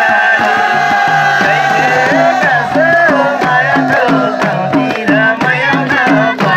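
Nepali dohori folk music: a long held melody line over a steady, quick hand-drum rhythm.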